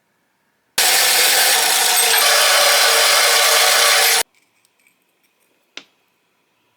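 A power tool working scrap metal runs for about three and a half seconds, starting and stopping abruptly. It is followed by faint small clicks and one sharp clink of metal.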